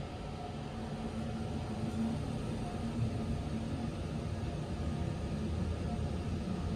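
KONE elevator car travelling in its shaft, heard from inside the cab: a steady low rumble and hum with a faint steady tone.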